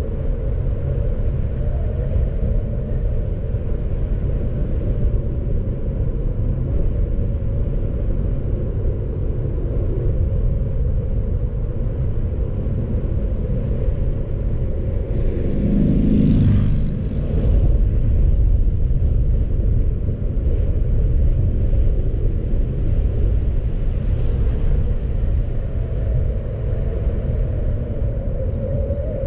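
A car driving: a steady low rumble of road and engine noise, briefly louder about halfway through.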